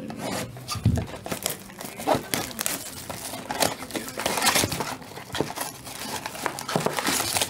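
Wrappers of basketball trading card packs being torn open and crinkled by hand, a dense run of irregular crackles, with a soft thump about a second in.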